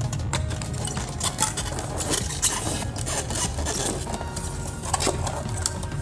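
Handling noise from the sheet-metal case of an H-Buster HBD-7200MP car stereo being held and turned close to the microphone: scattered rubs, scrapes and small clicks over a steady low background.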